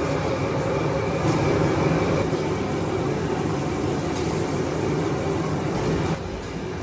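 Steady roar and hiss of a restaurant kitchen's charcoal grill station, dropping a little in level about six seconds in.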